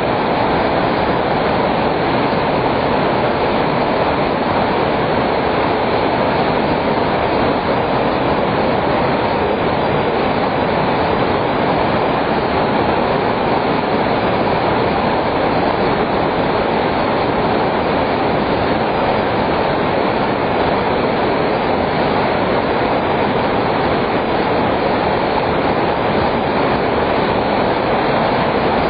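A fast river rushing steadily, a constant noise of fast-flowing water with no breaks.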